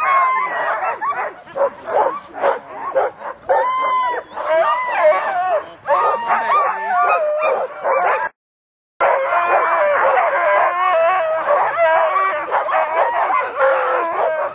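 A team of sled dogs in harness barking and yelping all at once, many overlapping cries rising and falling in pitch: the excited clamour of dogs waiting to run. The sound cuts out for a moment about eight seconds in.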